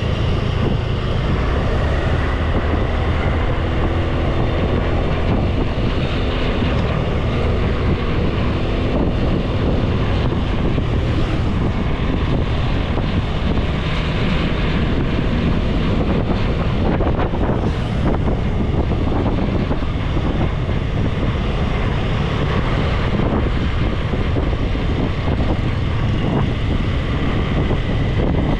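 Wind rushing over an action camera's microphone on a moving motorbike, with the engine running steadily underneath.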